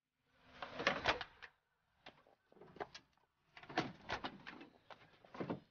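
Car door being worked: a run of clicks and clunks in several clusters as the door is opened and shut.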